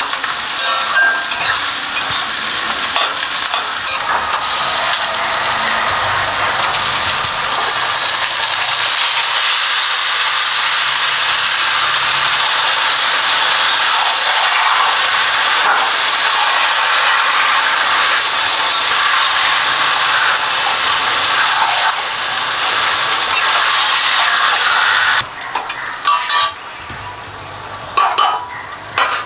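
Onions and marinated mutton sizzling in hot oil in a metal kadai while a metal spatula stirs and scrapes the pan. Near the end the sizzle drops away suddenly, leaving a few clinks of metal on metal.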